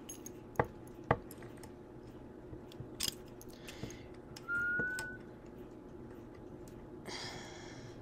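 Small metal clicks from needle-nose pliers being worked on a bent wire: two sharp clicks about half a second apart near the start and another about three seconds in. A brief high steady tone sounds in the middle, and a short soft rustle near the end, over a low steady hum.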